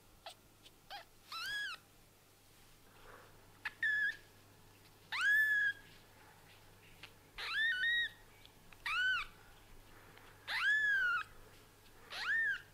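Newborn kitten, its eyes just opened, mewing repeatedly: about eight thin, high-pitched mews, each rising and then falling in pitch, some short and some nearly a second long.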